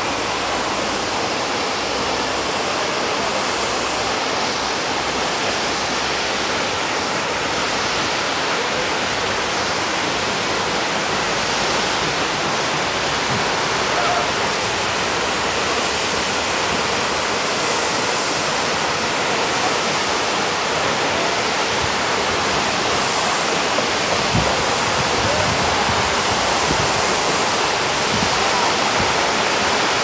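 Waterfall rushing: a steady, unbroken sound of falling water.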